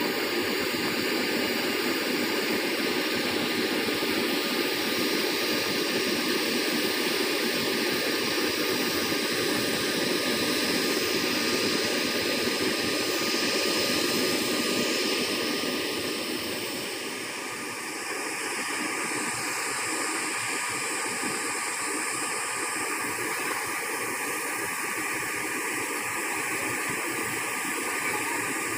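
Steady jet-turbine noise from parked airliners: a continuous rush with a thin steady whine. About 17 seconds in it dips briefly, then carries on a little quieter and hissier.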